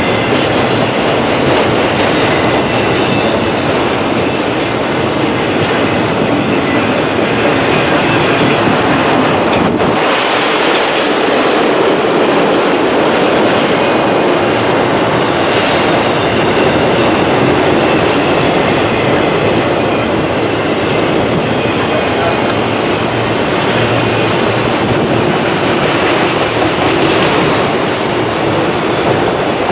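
A freight train of enclosed autorack cars rolling past: the steady noise of steel wheels running on the rails.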